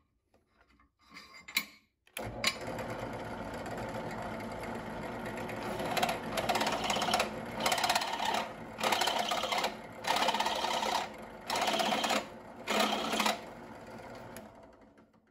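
Bench drill press starting up and running with a countersinking bit, cutting screw-hole countersinks into the aluminum weapon part in six short, louder passes. The motor is switched off near the end and winds down.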